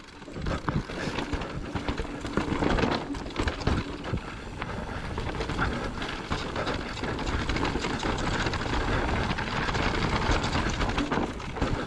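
Electric mountain bike ridden fast down a rocky dirt trail: continuous tyre noise over dirt and stones, with the bike rattling and frequent small knocks from bumps.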